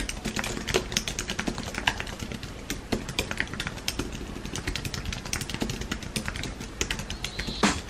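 Fast, continuous typing on a low-profile computer keyboard: a dense, uneven patter of key clicks, several strokes a second.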